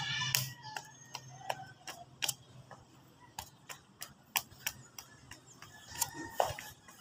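Irregular sharp clicks and ticks, a few a second, with a louder pair of knocks about six seconds in.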